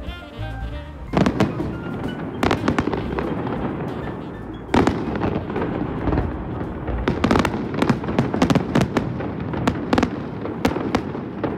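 After about a second of music, fireworks go off: a string of sharp bangs and dense crackling, with the loudest bangs about one, two and a half and five seconds in.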